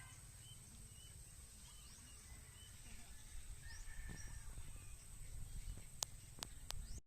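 Faint rural outdoor ambience: a low rumble with a few short, distant bird chirps scattered through it. A handful of sharp clicks come near the end.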